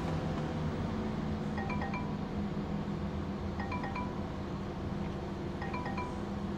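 Jaguar XF's lights-on warning chime, three times: each a short run of quick tones, repeating about every two seconds, warning that the headlights are still on with the engine off. A steady low hum runs underneath.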